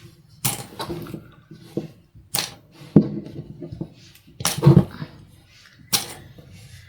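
Plastic quilting clips being unclipped from sewn fabric and set down: a run of about seven sharp, irregular clicks.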